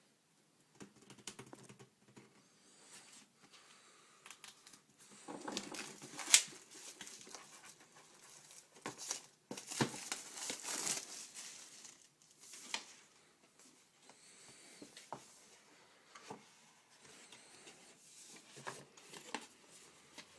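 A keyboard's retail box being opened by hand: packaging crinkling and tearing, with scattered taps and clicks of the box being handled. The sharpest click comes about six seconds in, and a longer rustle follows around ten seconds.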